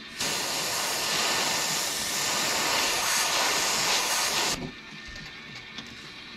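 Airbrush spraying paint: a steady hiss of air from the nozzle that starts just after the opening and cuts off sharply about four and a half seconds in.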